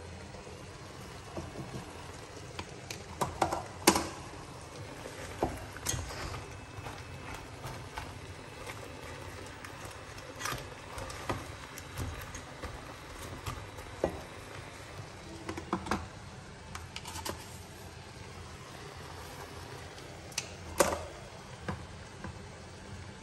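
Giant river prawns frying in a pan, a steady sizzle, with scattered clicks and knocks of kitchen utensils, the loudest about four seconds in and again near the end.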